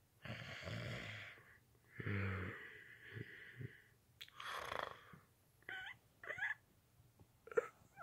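A person's voice imitating snoring: three breathy snores, one with a low buzz, followed by a few short wavering moans like someone stirring awake.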